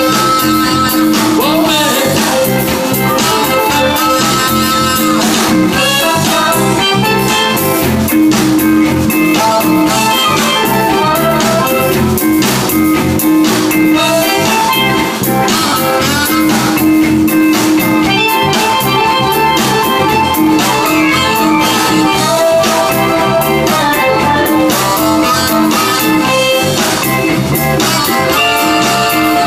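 Zydeco band playing live: accordion, electric bass, electric guitar and drum kit, recorded on an iPad.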